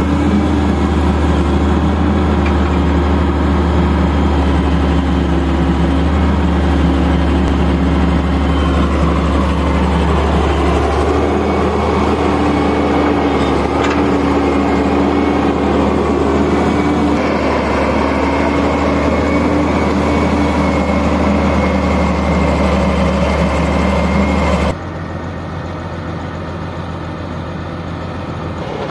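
Diesel engine of a Daewoo Solar 170W-3 wheeled excavator running steadily under load as it digs and dumps sand. Its note shifts as the arm works. About 25 seconds in the sound abruptly turns quieter and lower.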